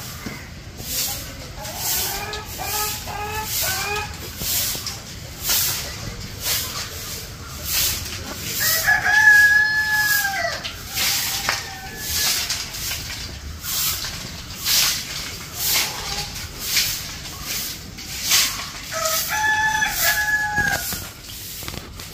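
Stick broom sweeping a tiled courtyard in steady strokes about once a second. A rooster crows twice, once near the middle and once near the end, and short clucking calls come in the first few seconds.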